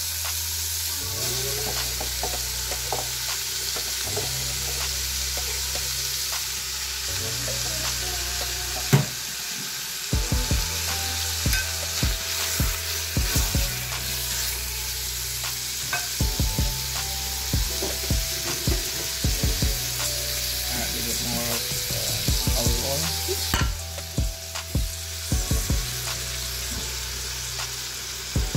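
Cubes of beef sizzling as they sauté in oil in a Philips multicooker's inner pot. A utensil stirs them, knocking repeatedly against the pot from about a third of the way in.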